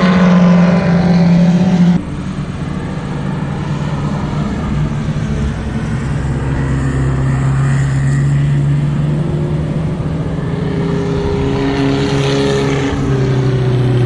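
Race car engines running on track, held at a fairly steady pitch. The sound changes abruptly about two seconds in.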